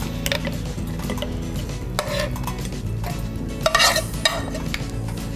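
Metal utensil scraping and clinking against a frying pan as risotto is scooped out onto a plate, with the loudest scrapes about two seconds and four seconds in.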